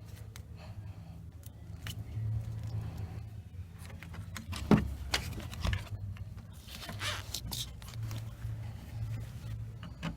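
Handling noises: small clicks and scrapes of parts and tools, with one sharp knock about halfway through and a short scraping rustle shortly after, over a steady low hum.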